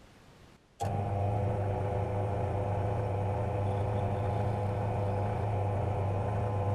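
Electric motor of a workshop power tool switching on abruptly about a second in, then running at a steady speed with a constant hum.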